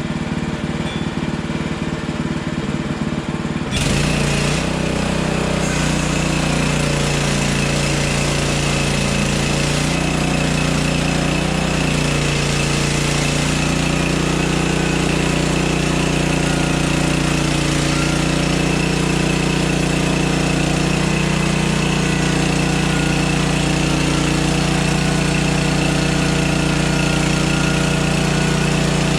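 Hudson Hunter portable band sawmill's gas engine running. About four seconds in it steps up suddenly to a louder, steady run with a thin high whine over it.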